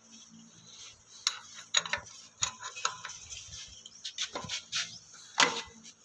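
Irregular metal clinks and clicks of a spanner working the 19 mm nut that holds a tractor's diesel injection pump, with the loudest clink near the end.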